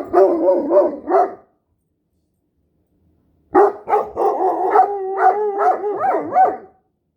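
Dog howling and making wavering, yodel-like vocal noises in two bouts: a short one at the start and a longer one from about halfway, with a held steady note in the middle of the second bout.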